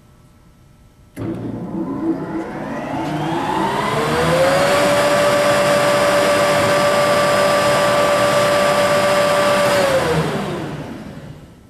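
Bottom cutterhead of an Ultra 225 double-sided planer starting up with a rising whine, running at a steady pitch, then braking to a stop in about two seconds once the master stop switch is pressed, its pitch falling quickly.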